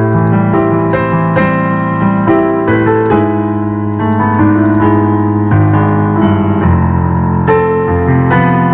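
Instrumental piano music: sustained chords with notes struck in a gentle flowing pattern, changing chord every second or two.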